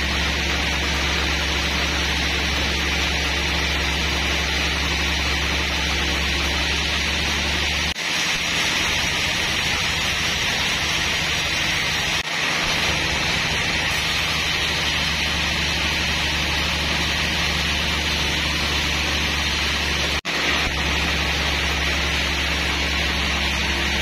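Band sawmill running steadily: a low motor hum under a constant hiss from the saw. The sound drops out briefly three times.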